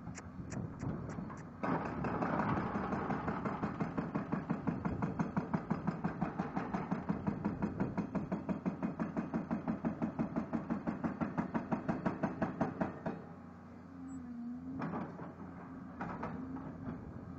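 CMB RB26 hydraulic rock breaker on an excavator hammering a dolomite boulder: a few single blows, then from about two seconds in a long run of rapid, evenly spaced blows, about five a second, that stops near the end; the excavator's engine keeps running afterwards.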